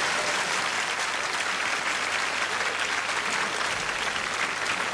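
Theatre audience applauding, a dense, steady clapping that holds its level.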